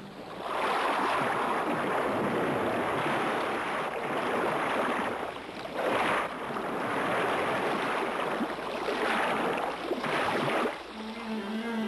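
Rushing, splashing water in waves that swell and ebb, with strong surges about six and ten seconds in. Near the end the rushing falls away and a low held musical tone comes in.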